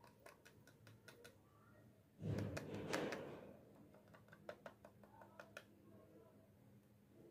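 Fingernails tapping and clicking on a small plastic toy refrigerator as it is handled, with a louder burst of handling noise lasting about a second, starting a little over two seconds in.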